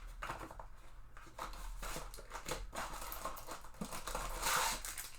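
Trading-card blaster box and pack wrappers being opened and handled: irregular rustling and crinkling with light tapping, with two louder tearing, crackling stretches, one about a second and a half in and one near the end.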